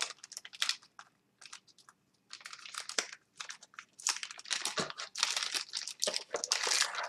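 Thin plastic bag crinkling and rustling as a keyboard cord is unwrapped from it by hand, in irregular crackles with a quiet pause about a second in and denser crinkling in the second half.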